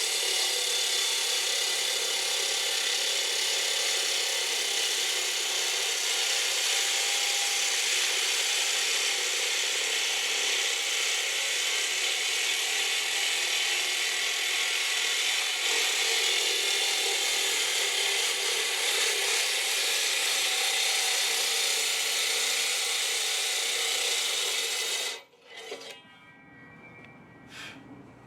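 A power tool running steadily as it cuts, then stopping suddenly near the end, followed by a couple of light clicks.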